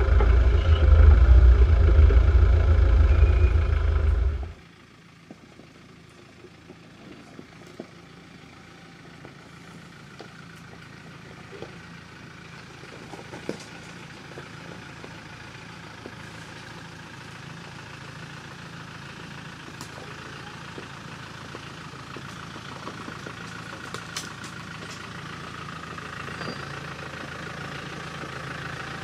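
Land Rover Discovery 300Tdi four-cylinder turbodiesel engines on a rough lane. For about four and a half seconds one is loud, heard from inside the cab while driving; then it cuts to another heard from outside. That one is faint at first and grows steadily louder as it crawls closer at low revs, with a few small clicks from the stony track.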